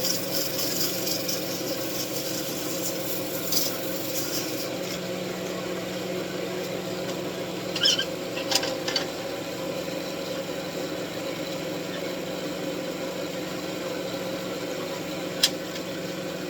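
Wood lathe motor running with a steady hum while sandpaper hisses against the spinning wooden wand for the first few seconds, then stops. A few light clicks follow around the middle, and one sharp click near the end.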